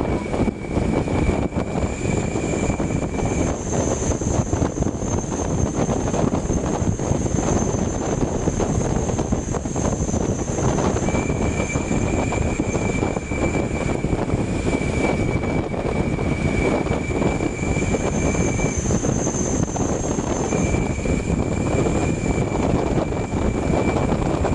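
Sutra bus no. 581 on the move: a steady rush of wind and road noise, with a thin high whine that comes and goes.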